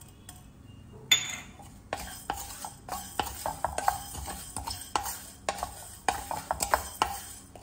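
Wooden spatula stirring dry coriander seeds, black peppercorns and fenugreek in a stainless steel kadai: seeds rattling and scraping on the metal, with quick taps of the spatula. It begins about a second in. The spices are being roasted in the pan's leftover heat with the gas off.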